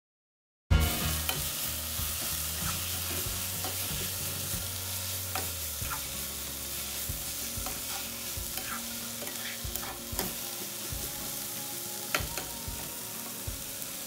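Sliced onions frying in coconut oil in a nonstick pan: a steady sizzle that starts suddenly about a second in, with scattered taps and scrapes of a spatula stirring them.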